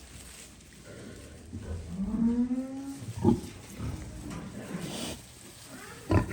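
A farm animal gives one low, drawn-out call of about a second, rising slightly in pitch. Two sharp knocks follow, one just after the call and one near the end.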